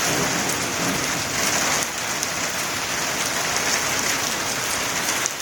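Steady rain falling hard, an even hiss with many small drop ticks.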